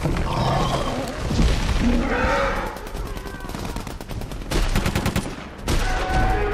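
Rapid automatic gunfire in a film soundtrack, coming in bursts that are densest a little past halfway, over a heavy low rumble.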